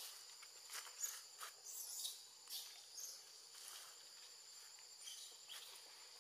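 Steady high-pitched insect chirring in the forest, with a few short faint rustles and clicks in the first half and once more near the end.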